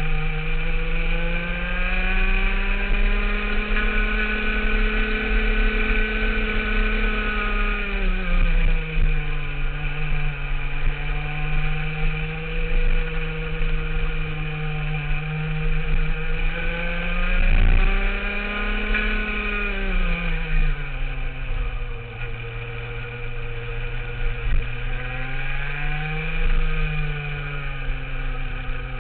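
Racing kart's Rotax Max 125 cc two-stroke single-cylinder engine running hard through a lap. Its pitch climbs steadily, drops sharply under braking for a corner about eight seconds in and again about twenty seconds in, then climbs again as the kart accelerates out.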